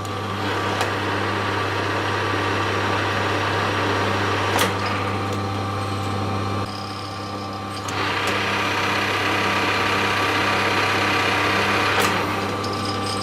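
Power drill motor running a spiral flute tap into a 3D-printed ABS spacer, in two spells with a short drop about halfway. A steady low hum sits underneath throughout.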